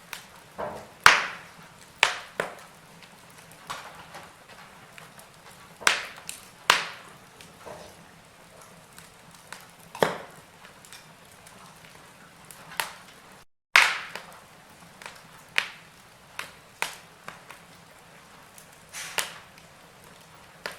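Wood fire burning in a fireplace, crackling with sharp irregular pops roughly a second or two apart over a low hiss. The sound cuts out completely for a split second just past the middle.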